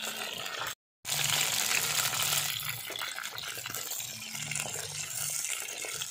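Small whole brinjals sizzling as they fry in hot oil in a clay pot, turned with a wooden spatula: a steady hiss. The sound drops out briefly just before a second in.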